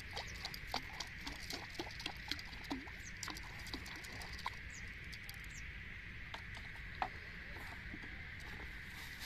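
A hooked fish splashing and thrashing at the water surface near the rod tip, making rapid light splashes and patters. They are busiest in the first half and thin out later, with one sharper splash about seven seconds in. A steady high hum runs underneath.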